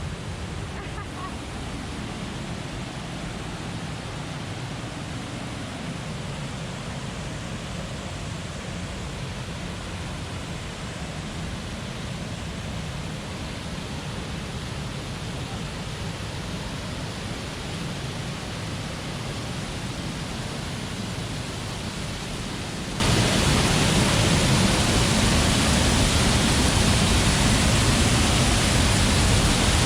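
Waterfall on the Willow River: a steady rush of falling water that jumps suddenly louder about three-quarters of the way through.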